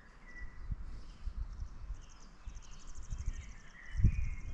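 Outdoor lakeside ambience: small birds chirping, with a rapid high trill in the middle, over a soft steady hiss. Irregular low bumps and rumble on the microphone, with a louder thump about four seconds in.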